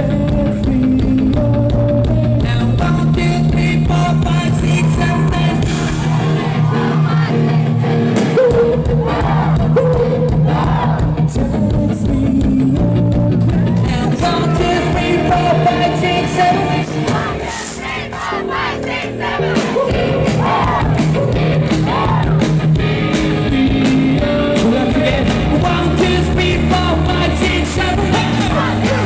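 Live rock band playing loud and amplified, with a singer's voice over the instruments.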